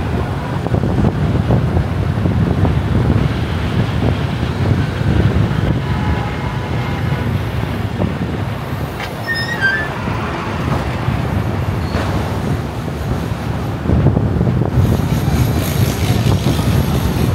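Steady low road and engine rumble of a car driving through city traffic, with a few short high chirps about nine to ten seconds in and more hiss from about fourteen seconds.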